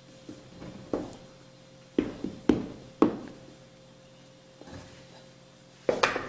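A spoon knocking and tapping against the aluminium cake pan and mixing bowl as cake batter is stirred and scraped in: sharp knocks with a short ring, roughly one a second, then a pause and one more near the end.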